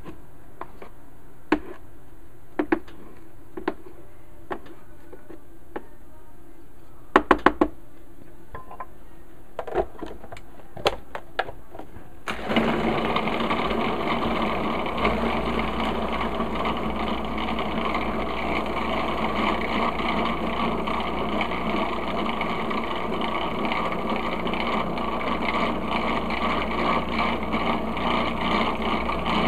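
Scattered sharp clicks and knocks of a spatula in a plastic food processor bowl and of the bowl's lid going on, with a quick cluster of clicks about seven seconds in. About twelve seconds in, the food processor's motor starts suddenly and runs steadily, blending frozen banana chunks into soft-serve banana ice cream.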